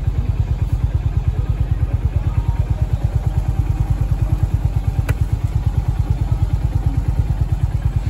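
Honda CB350 RS's single-cylinder four-stroke engine running at low revs, a steady, even beat of about ten pulses a second. A single sharp click about five seconds in.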